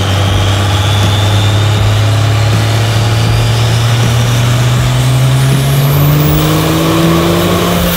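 Turbocharged diesel engine in a Mustang running hard, its note climbing slowly and steadily, with a high whine rising above it from the turbocharger.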